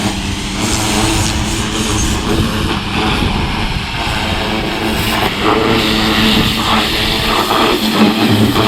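Greenworks small electric pressure washer running, its motor and pump humming steadily under the hiss of the water jet spraying onto a surface.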